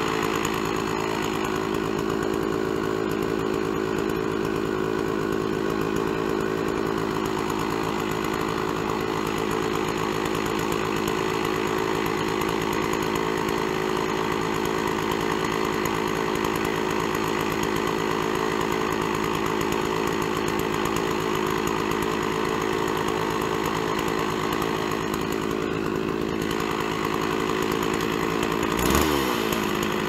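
Stihl 660 two-stroke chainsaw on a PortaMill chainsaw mill, running steadily under load as it rips along a log. Near the end its engine note dips and then climbs.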